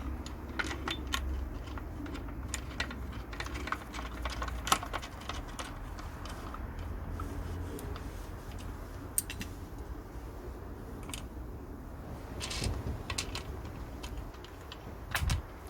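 Allen key and metal rack parts clicking and clinking as the rack's bolts are tightened by hand. The clicks come quickly in the first few seconds and thin out, with a couple of duller knocks near the end.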